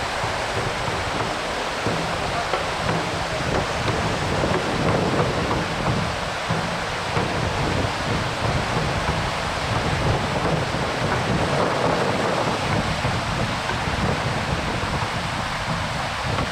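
Steady rushing noise of wind buffeting the microphone outdoors, with a gusting low rumble.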